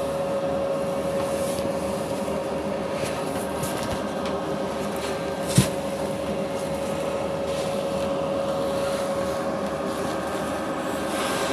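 Steady machine drone with a constant mid-pitched hum, broken by one sharp knock about five and a half seconds in.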